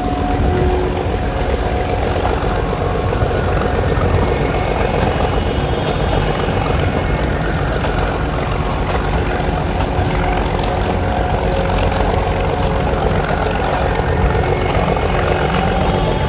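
Nilgiri Mountain Railway narrow-gauge train running: a loud, steady rumble with a faint hum of steady tones over it.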